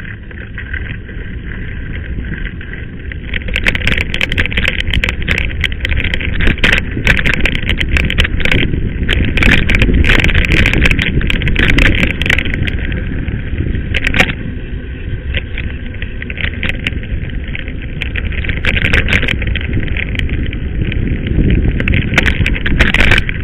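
Mountain bike riding over a rough gravel dirt track, heard from a camera riding along: a continuous rumble of tyres on gravel and wind, with rapid rattling clicks and knocks from the bike jolting over the bumps. The rattling starts a few seconds in and gets louder.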